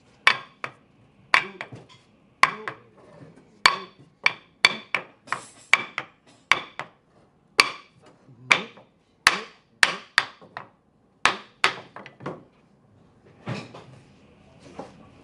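Hammer blows knocking wooden joinery home: about two dozen sharp, ringing strikes at an uneven pace of one or two a second, stopping about twelve seconds in, then softer handling knocks.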